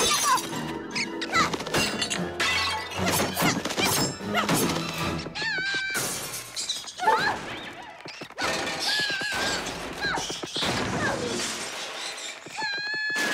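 Cartoon soundtrack: music with busy slapstick sound effects, including a glass-shattering crash and many sharp knocks, plus short squeaky pitch glides.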